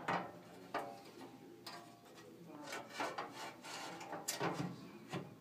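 Ceramic cladding panel being fitted into its mounting profile: a series of sharp clacks and knocks with short scrapes as it is pushed and seated.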